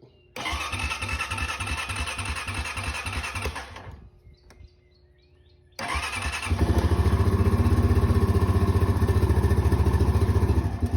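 2005 Honda Rancher 350's single-cylinder engine turned over by its newly replaced electric starter, powered from a jump pack because the battery is dead. It cranks rhythmically for about three seconds without catching, stops, then cranks again and fires about six and a half seconds in, settling into a steady run.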